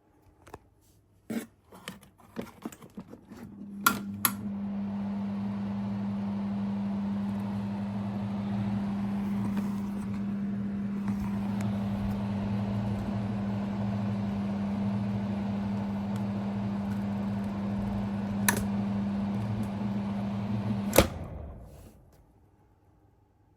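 Takasu Sangyo FF-200 ventilation fan: a series of switch clicks, then about four seconds in the motor starts and runs with a steady hum and an even rush of air. Near the end it is switched off with a loud click and winds down. The switch is one the owner thinks is a little short of oil.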